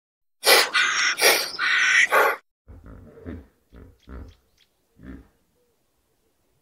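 Hippopotamus calling: a loud harsh call in several pulses, then a run of quieter, deep grunts that die away.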